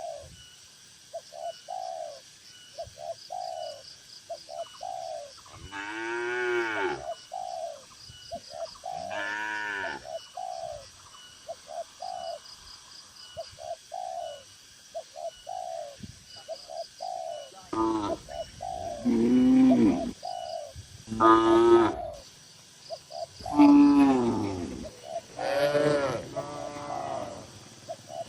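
Cattle mooing in a shed: two long moos in the first half, then several loud moos overlapping one another through the last third. Behind them, short low calls repeat steadily through the first half.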